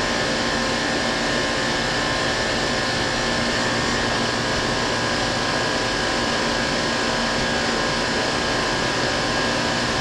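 Carrier Infinity Series outdoor air-conditioner condensing unit running steadily: condenser fan and compressor making an even whoosh with a faint steady whine. It is running with its R-410A charge at about 11 to 12 degrees subcooling, the target for a correct charge.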